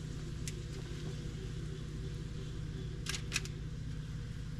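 Silicone spatula scraping and tapping against a frying pan as sautéed lobster chunks are scooped out: a few short clicks, a close pair of them about three seconds in, over a steady low hum.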